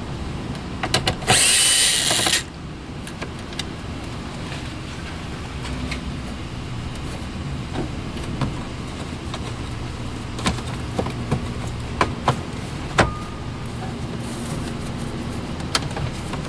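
Plastic interior trim of a Ford F-150's center console being worked loose: scattered sharp clicks and knocks, with a loud scraping rasp lasting about a second near the start.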